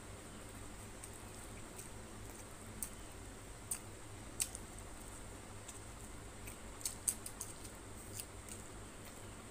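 Close-up eating sounds: a hand squeezing rice with tilapia curry and fried fish, and a mouth chewing, heard as scattered sharp, wet clicks with a small cluster about seven seconds in. Under them runs a steady faint hiss.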